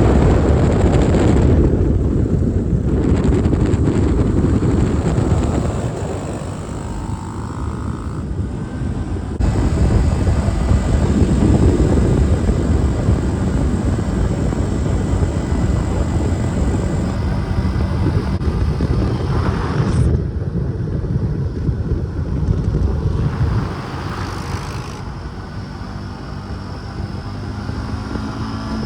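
Four-wheeler (ATV) engines running on the move, a loud steady drone that changes abruptly about a third of the way in and again near the end.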